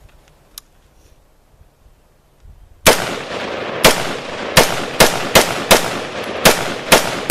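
A string of gunshots: about nine sharp shots at uneven spacing, starting about three seconds in, over a steady rushing background.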